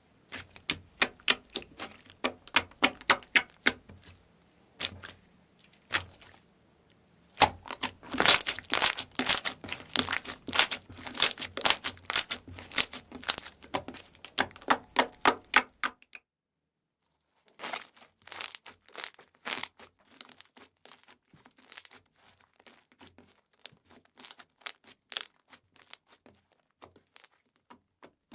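Slime being squeezed and poked, giving rapid sharp clicks and pops that come thickest and loudest in the middle. The sound cuts out completely for about a second and a half, then the clicks come back more sparsely.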